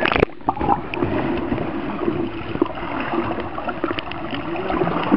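Muffled, gurgling water noise picked up with the microphone submerged in a swimming pool. A short splash comes right at the start as it goes under.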